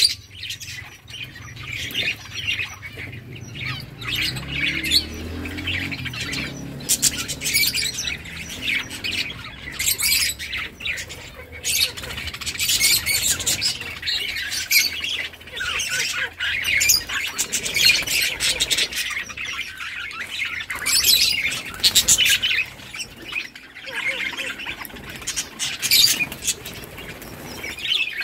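A flock of budgerigars chattering and squawking continuously, many short overlapping chirps and sharper squawks.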